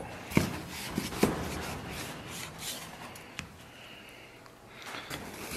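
Chinese cleaver slicing through raw pork belly on a wooden chopping block: the blade rubs through the meat and knocks on the wood twice in the first second and a half, then softer rubbing as the cut slices are handled.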